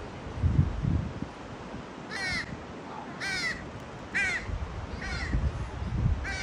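Crows cawing: five short, harsh calls about a second apart, starting about two seconds in. Low thumps of wind on the microphone, loudest in the first second.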